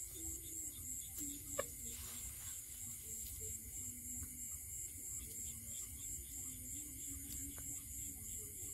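Steady night chorus of crickets and other field insects, with a faint low wavering tone underneath. A light click, likely the wire cage trap being handled, comes about one and a half seconds in.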